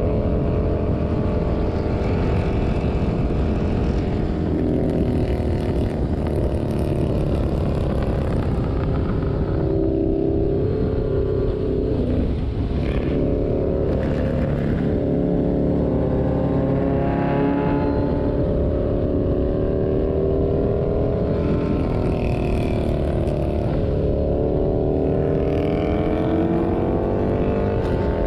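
Kawasaki ZRX inline-four motorcycle engine running at road speed under heavy wind rush, its pitch dropping as the bike slows about a third of the way in and climbing again near the end as it accelerates.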